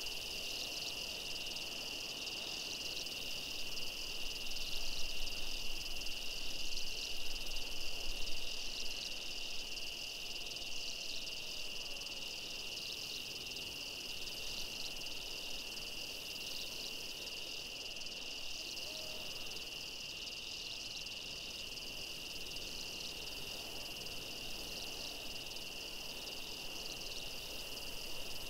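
Night chorus of calling insects: a steady high trill with a faster pulsing buzz above it, slightly louder for a few seconds early in the chorus.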